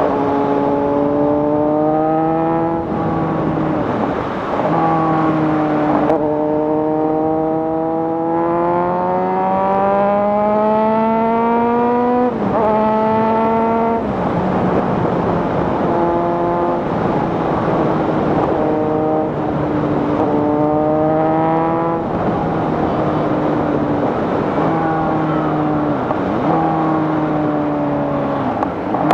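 Kawasaki Z900's inline-four engine through an SC Project full-system exhaust with the catalytic converter removed, pulling through the gears under way. The revs climb and drop back at each upshift, with one long climb in the middle.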